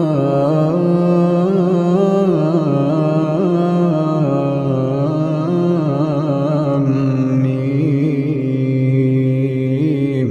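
A man's voice in melodic Quran recitation (tajweed), holding long drawn-out, ornamented notes with a wavering pitch.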